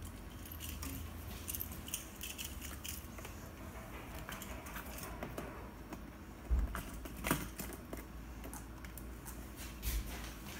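Small clicks and rattles of a programming cable and its plug being handled and fitted to a two-way radio on the bench, a few sharper knocks among them, over a steady low hum.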